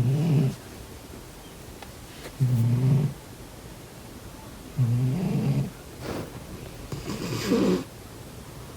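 Sleeping cat snoring: four low snores roughly two and a half seconds apart, the last one longer and breathier.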